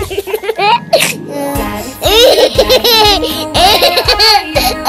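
A baby laughing in repeated high bursts over children's background music.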